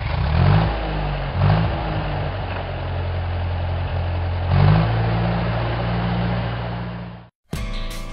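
Heavy farm machine's engine running and revving up three times, each a brief rise in pitch before it settles back to steady running. The engine sound cuts off suddenly near the end and music begins.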